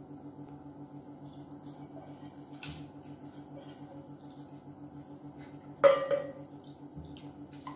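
Stainless steel bowl knocking against the rim of an aluminium pressure cooker as soaked moong dal is tipped and scraped into the water: a light tap a little before halfway and a sharp metal clink with a short ring near the end, over a steady low hum.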